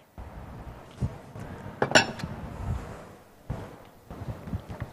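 Dishes and bowls being handled and set down on a kitchen counter: a few knocks and clinks, the loudest a ringing clink about two seconds in.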